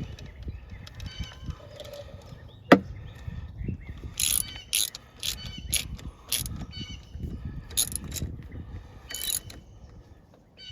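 Hand ratchet clicking in a series of short strokes as a coil pack bolt is tightened down, after a single sharp click about three seconds in.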